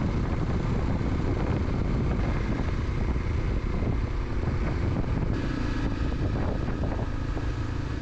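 A motorcycle running on the road, with its engine and rushing wind making a steady, loud noise that is heaviest in the low end.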